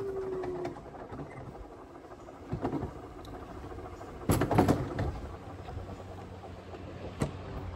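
Alpine coaster cart running down its metal rail, the wheels rumbling along the track with a few sharp clatters, the loudest a cluster of knocks about four seconds in. A drawn-out falling tone fades out in the first second.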